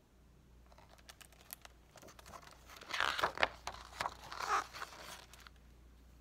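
Pages of a hardcover picture book being turned by hand, the paper rustling and crinkling. It starts about a second in and is loudest in the middle, then dies away before the end.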